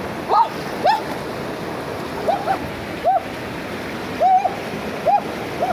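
Shallow rocky river rushing steadily over stones, with water gurgling and plopping close by in short hollow blips at irregular intervals.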